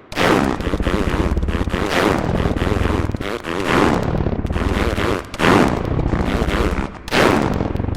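Fart sound samples pitched to play a song's melody and chords as a soundfont rendition: a continuous, buzzy, rasping texture with louder swells every second and a half to two seconds.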